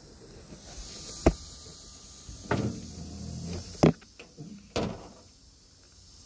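Handling noise from a phone being carried and propped up: four sharp knocks and clunks about a second apart, with rustling between them.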